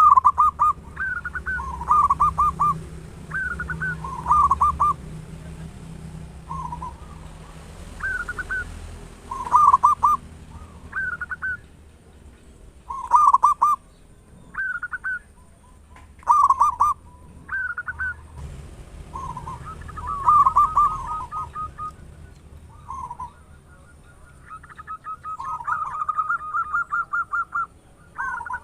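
Zebra dove (perkutut) cooing: short phrases of rolling, pitched notes repeated every second or two, turning into a faster, even string of notes near the end.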